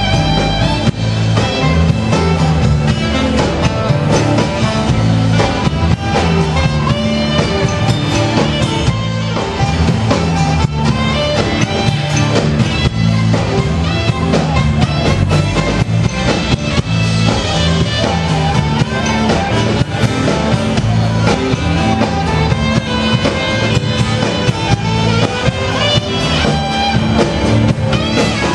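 Live rock band playing: electric guitar, bass and drum kit, with a saxophone in the band.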